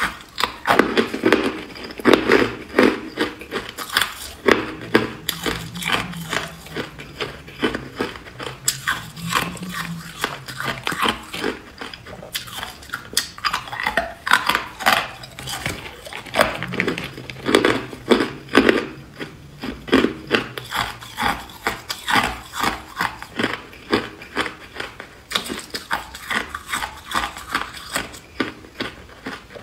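Hard clear ice cubes being bitten and chewed, a dense run of sharp cracking crunches, several a second, going on throughout.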